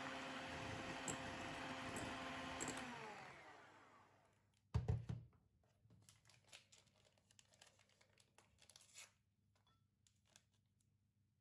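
Electric hand mixer whisking cream in a glass bowl, its motor running steadily, then switched off about three seconds in and winding down with a falling pitch. A loud knock follows a little later, then a few light clicks and taps.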